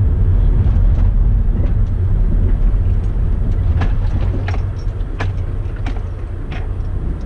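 Road noise inside a moving car: a steady low rumble from the engine and tyres, with a few light clicks in the second half.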